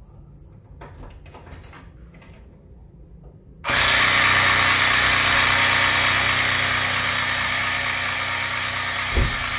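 Multilaser 12 V mini air compressor switching on abruptly about three and a half seconds in, after a few faint clicks, then running steadily with its small electric motor buzzing. A low thump sounds near the end.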